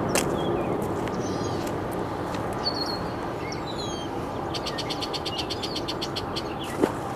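Songbirds chirping, with a fast dry trill of about ten notes a second near the middle, over a steady background rush. A couple of short sharp clicks, one just after the start and one near the end.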